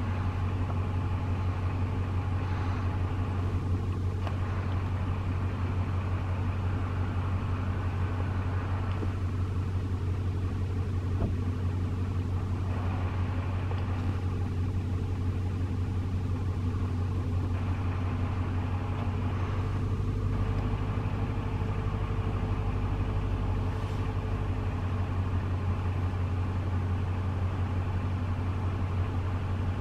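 Steady low hum of an idling engine, unchanging throughout.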